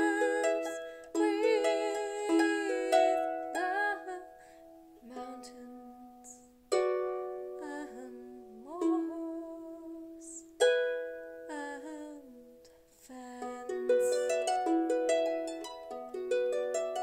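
Harp music: plucked notes and chords that ring and fade, in phrases separated by short quiet gaps, with a quicker run of notes near the end.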